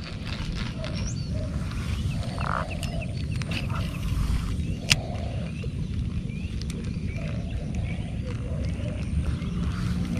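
Steady low wind rumble on the microphone, with scattered small bird chirps over it and a single sharp click about five seconds in.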